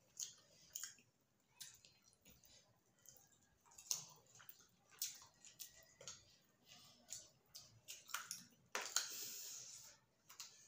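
Faint close-up eating sounds of rice and chicken curry eaten by hand: wet chewing and lip smacks, with short clicks of fingers working rice on steel plates. A breathy hiss lasting about a second comes near the end.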